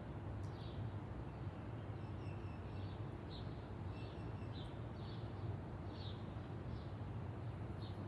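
Small birds chirping, short high calls coming about once or twice a second, over a steady low hum.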